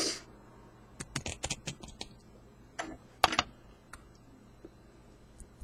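Small sharp metallic clicks and taps of a lock cylinder being gutted: the core slid out on a follower and its pins and springs dropping into a pin tray. A brief hiss at the start, a quick cluster of clicks about a second in, then two louder clicks around three seconds and a few faint ticks.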